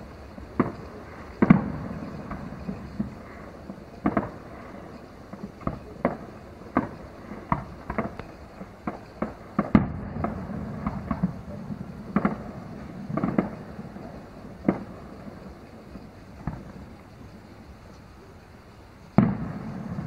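Aerial fireworks heard from just over a mile away: an irregular string of shell bursts and bangs, each trailing a low rumbling echo. A lull comes near the end, broken by a loud bang just before it closes.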